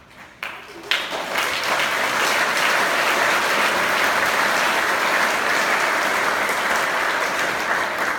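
Audience applause: a few scattered claps, then dense, steady clapping from about a second in.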